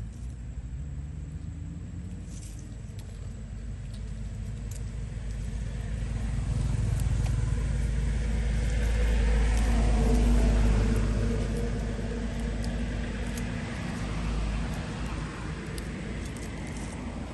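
A motor vehicle passing by: its engine rumble grows slowly louder, peaks about ten seconds in, then fades away.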